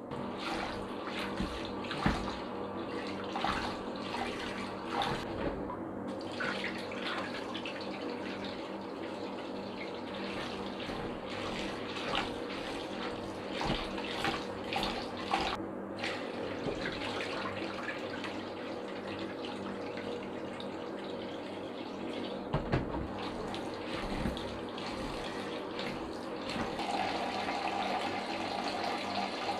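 Kitchen tap running into a steel bowl of chana dal (split chickpeas) being washed, with scattered splashes and clicks as the lentils are rubbed by hand in the water.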